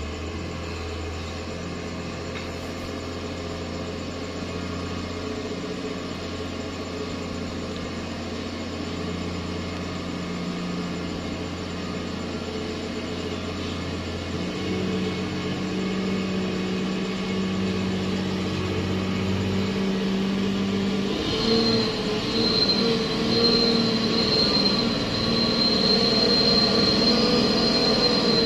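Hino dump truck's diesel engine labouring up a muddy slope at low speed, a steady hum that grows louder as the truck approaches. About two-thirds of the way in, a steady high-pitched whine joins the engine.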